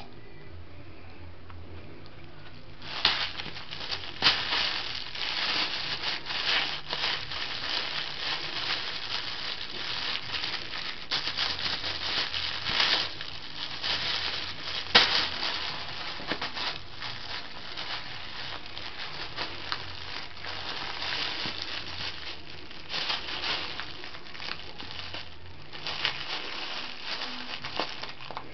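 Plastic bag crinkling and crackling in irregular bursts as a kitten rolls on it, paws it and bites at it, starting a few seconds in and easing off near the end.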